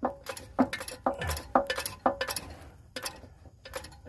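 Hand socket ratchet clicking and clinking in short, irregular strokes as it works a torque converter bolt loose on the flex plate.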